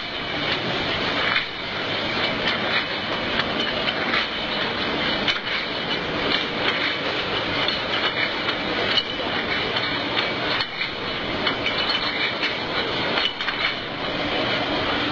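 Glass bottle filling line running: a steady mechanical din from the conveyor and filler, with constant rapid clinking and knocking of glass bottles against each other and the machine.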